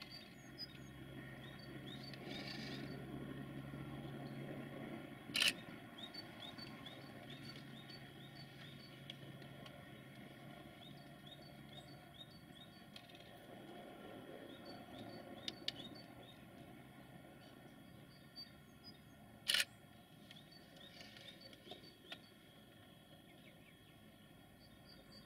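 Faint outdoor ambience: small birds chirping, with a low rumble from a distant freight train, strongest in the first few seconds. Two sharp clicks about fourteen seconds apart are the loudest sounds.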